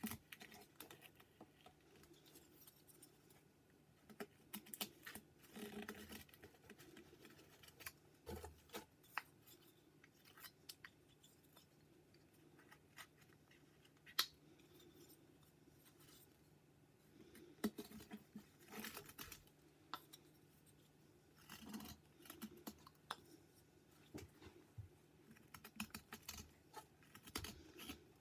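Whittling knife cutting wood: faint, irregular slicing and scraping strokes in short clusters, with scattered clicks and one sharper click about fourteen seconds in.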